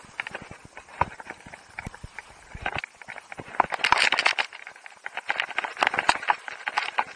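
Skis on hard snow: irregular clacks and knocks, with a louder stretch of scraping about four seconds in.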